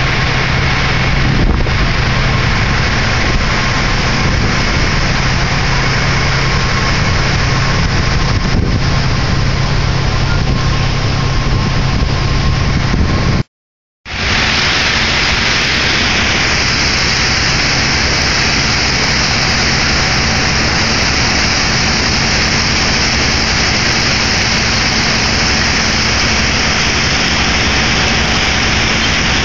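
Ferry's engine running with a steady low drone under a loud, even rush of water and broken lake ice sliding along the hull as the boat pushes through the ice. The sound cuts out for a moment about halfway through, then goes on as a steady rush.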